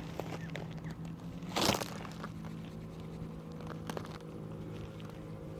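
A cloth rustling and rubbing on a car wheel rim during cleaning, with scattered small clicks and one short, louder hiss of noise about one and a half seconds in, over a steady low hum.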